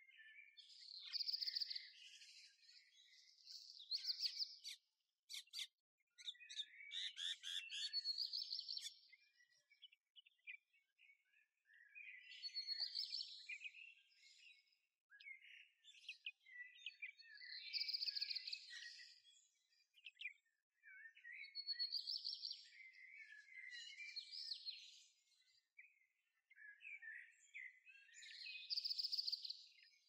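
A songbird singing short, bright song phrases every four or five seconds, with softer chirps between them.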